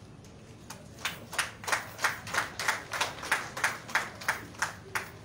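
A few people clapping in an even rhythm, about three claps a second, starting about a second in and stopping near the end.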